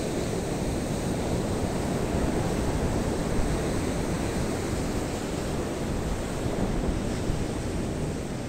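Rough-sea surf breaking on a sandy beach: a steady wash of waves, with wind buffeting the microphone.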